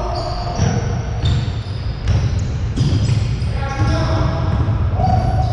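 Basketball bouncing on a hardwood gym floor during play, several sharp bounces, with the reverberation of a large gym hall.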